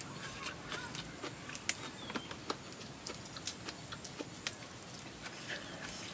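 Irregular crisp clicks and crunches of someone chewing food, a few a second.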